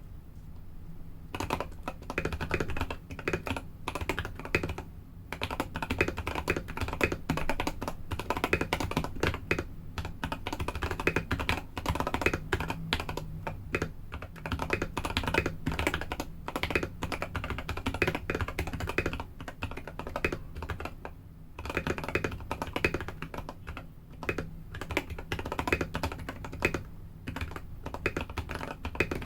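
Typing on a mechanical keyboard with SP-Star Polaris Purple tactile switches lubed with Krytox 205g2, in a Mr.Q 980 with a steel plate and GMK keycaps: a fast, steady run of key clacks. It starts about a second in, with a short pause about two-thirds of the way through.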